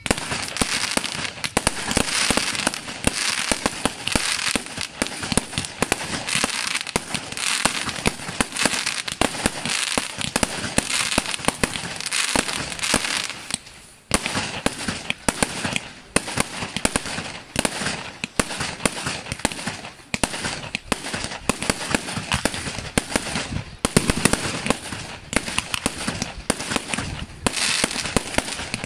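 Aerial fireworks display: a dense, continuous barrage of bursting shells and crackles, with brief lulls about halfway through and again a few seconds later.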